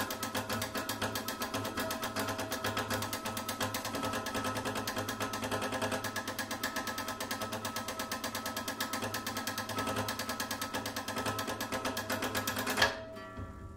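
An acoustic guitar mechanically agitated: its strings are shaken into a rapid, even rattling buzz over several sustained ringing pitches. Near the end a sharp click, and the rattle cuts off suddenly, leaving the strings ringing and fading.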